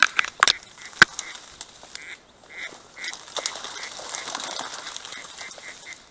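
A duck quacking in a run of short repeated calls, while dry reeds rustle and crack as someone pushes through them; a sharp snap about a second in.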